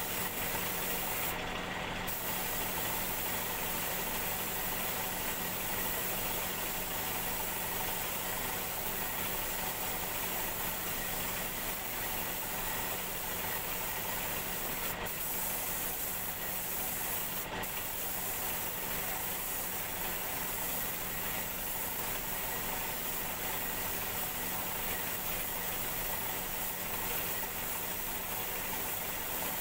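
Paint spray gun hissing steadily as it coats the vase, over a steady machine hum. The hiss cuts out briefly about two seconds in and twice more around the middle.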